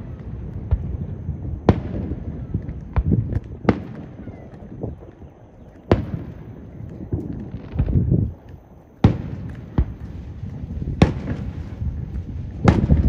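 Aerial fireworks going off: around ten sharp bangs and pops at irregular intervals, one to three seconds apart.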